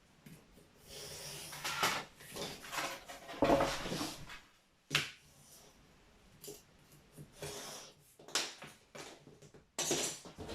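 Sheet material being measured and cut on a workbench: rasping cutting and scraping strokes with sharp clicks and taps as tools and pieces are put down.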